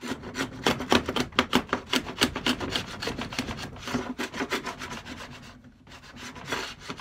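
Stanley No. 71 router plane's iron scraping and cutting the waste out of a dado in oak, worked in rapid short strokes of several a second, with a brief pause near the end.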